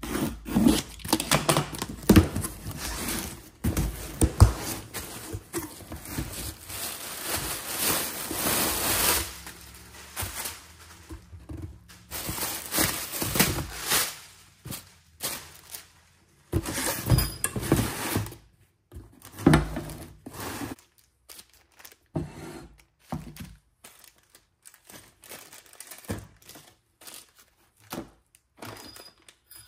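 A cardboard box being opened: packing tape slit and torn and the flaps pulled open, then plastic parts bags crinkling as they are lifted out and set down with soft knocks.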